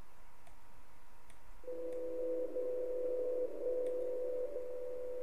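Radio receiver hiss, then about 1.7 seconds in a steady beep tone starts from the software-defined radio. The tone drops out briefly once every second, the pattern of a longwave time-signal station's second markers.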